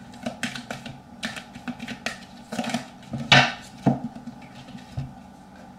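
Tarot cards being handled and laid down on a table: a scatter of light clicks and taps, the loudest about three seconds in.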